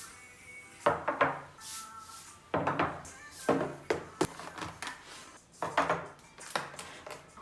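Kitchen dishes and utensils clattering: several clusters of short clinks and knocks, a second or so apart.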